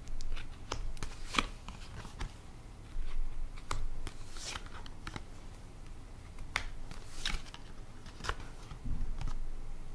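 Tarot cards being handled and dealt onto a cloth-covered table: a string of sharp, irregular card snaps and flicks.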